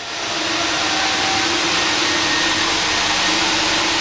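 Steady rushing air noise of the ventilation in an indoor pool hall, with a faint steady hum underneath. It swells over the first half second, then holds level.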